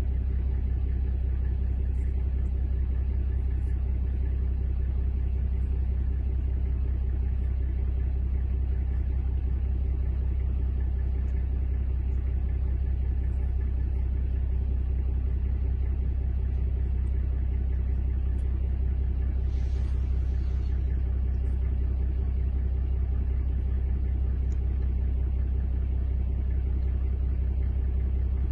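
A vehicle engine idling: a steady low rumble with a constant hum over it.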